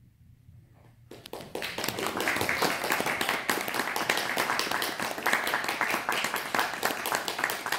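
A brief hush, then audience applause that breaks out about a second in and continues steadily.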